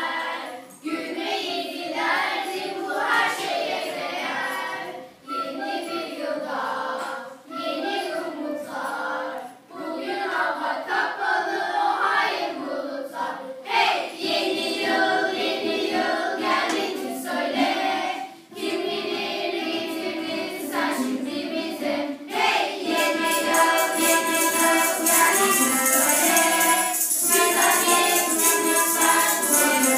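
Children's choir singing together with acoustic guitar accompaniment. About two-thirds of the way in, jingling percussion joins in and shakes steadily under the voices.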